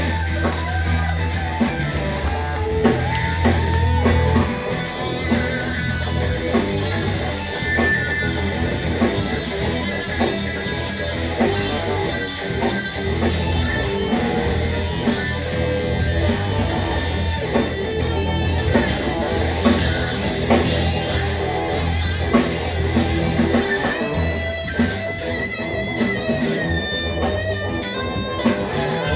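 Live rock band playing: electric guitars over bass guitar and a drum kit.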